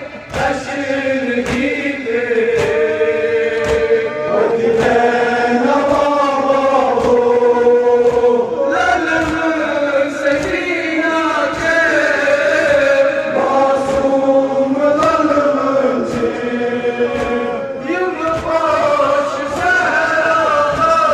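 Men chanting a Kashmiri noha (Muharram lament) together in long held lines, with regular chest-beating slaps (matam) keeping a steady beat under the voices.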